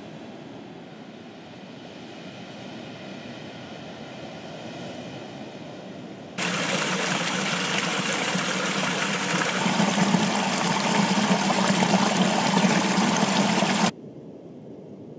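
Small waterfall splashing into a pool, a loud steady rush of water that starts abruptly about six seconds in and cuts off suddenly near the end. Before it there is a quieter steady rushing noise.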